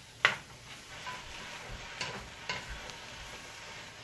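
Cubed beef searing over high heat in a frying pan, sizzling steadily as a wooden spoon stirs it. The spoon knocks sharply against the pan just after the start, and twice more, lighter, about halfway through.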